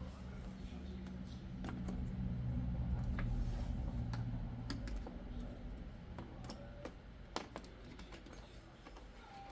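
Irregular light clicks of laptop keys being pressed, over a low steady hum that fades out about halfway through.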